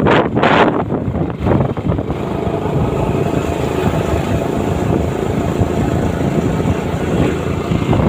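Vehicle engine and road noise while travelling along a road, a steady rush with wind buffeting the microphone in the first second or so.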